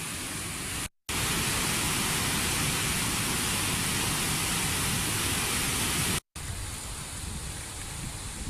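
Floodwater rushing through the dam's open spillway gates: a steady rushing noise. It cuts out briefly about a second in and again near six seconds, and the stretch between those gaps is louder.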